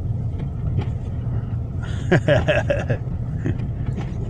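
Steady low rumble of a car being driven through snow, heard from inside the cabin. A brief wordless vocal exclamation comes about two seconds in.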